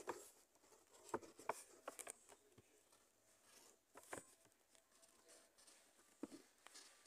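Faint scratching of a coloured pencil lead on paper as letters are written, in short scattered strokes with small pauses between them.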